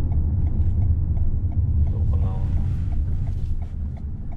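Steady low road and tyre rumble inside the cabin of a new Toyota Harrier hybrid while driving, with faint light ticks scattered through it. A brief hum of a voice comes a little over two seconds in.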